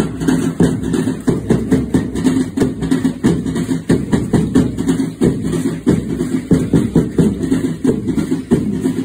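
Group of drums beating a fast, even rhythm for Aztec-style danza dancing, each stroke a deep, pitched boom.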